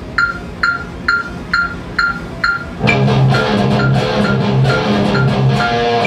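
Metronome clicking steadily, about two clicks a second, counting in the seven-beat bar. Just under three seconds in, an electric guitar in drop C tuning comes in over the clicks with a rhythm riff of low repeated notes, stressing the open low string.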